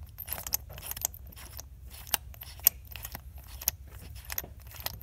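Half-inch ratchet on a 21 mm deep socket clicking and clinking irregularly as it undoes a screw-in diesel injector, over a low steady hum.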